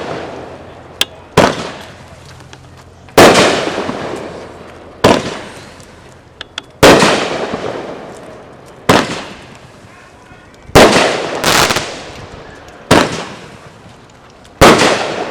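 Flashing Fireworks 'Zombie Apocalypse' 500 g 16-shot firework cake firing shot after shot. There are about nine loud bangs roughly two seconds apart, two of them close together near the middle, and each one fades out in a long tail. A few small pops fall between the bangs.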